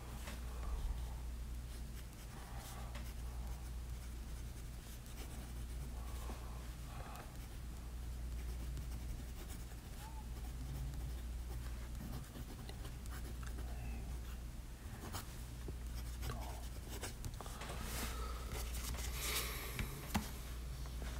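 Waterman Hemisphere fountain pen's steel medium nib writing on paper: faint, irregular scratching of pen strokes as a line of handwriting is written, over a steady low hum.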